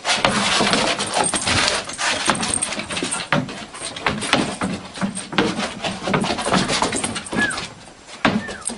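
A dog scrambling on a wooden deck after small bouncing balls: a dense, uneven run of quick clicks and knocks, with a brief squeak about seven and a half seconds in.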